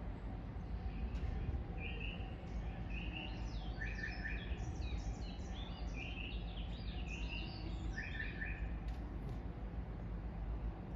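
Birds chirping in quick runs of short, high notes, mostly from about two seconds to eight and a half seconds in, over a steady low background rumble.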